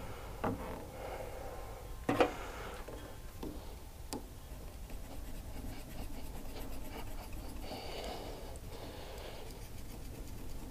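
A nylon zip tie being fastened around a rubber hose under the hood: a few knocks and handling noises, the loudest about two seconds in, then a scratchy ratcheting as the tie is pulled tight near the end.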